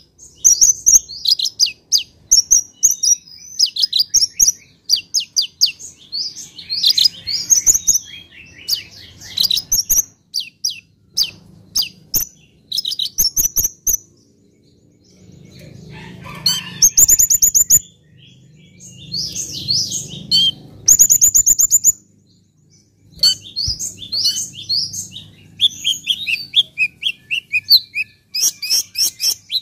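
Kolibri ninja sunbird singing in a fast, unbroken run of high chirps, twitters and trills, with short pauses about halfway and again about three-quarters of the way through. Two very fast, high trills stand out near the middle.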